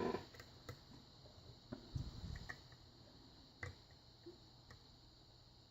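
Faint, scattered clicks and light taps of a lock pick and tension wrench in an old Russwin 6-pin tumbler lock, a small cluster about two seconds in, as the pins are reset.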